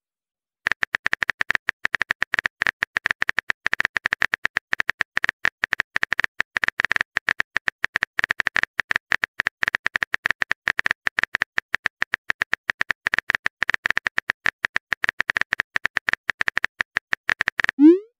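Phone keyboard typing sound effect: rapid, evenly spaced key clicks that start about half a second in and stop shortly before the end.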